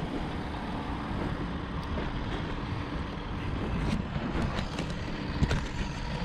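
Steady wind rumbling on the microphone, with a few faint knocks and scuffs about four and five and a half seconds in.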